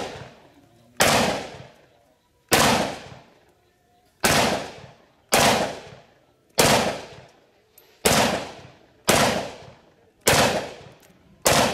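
Nine shots from a shortened-barrel SKS semi-automatic rifle in 7.62×39 mm, fired one at a time at a steady pace of about one every second and a half. Each shot is loud and sharp, trailing off over about a second.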